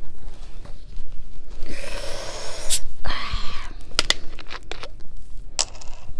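Plastic bottle of carbonated Coke Zero being twisted open: a hiss of escaping gas lasting about a second, a sharp click, then a second, shorter hiss. A few sharp clicks from handling the bottle follow.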